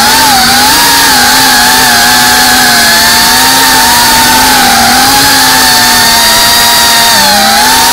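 FPV racing quadcopter's motors and propellers whining loudly, heard close up from the drone itself. The pitch wavers as the throttle changes, dipping briefly near the end and then climbing again.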